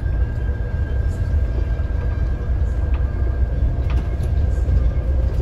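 Scania K410 coach driving at speed, heard from inside the cabin: a steady deep rumble of engine and road noise, with a thin steady whine above it.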